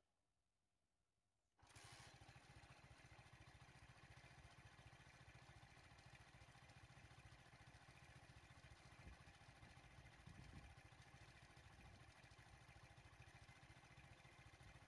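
Faint, steady idling vehicle engine with a low rumble, coming in about a second and a half in after near silence.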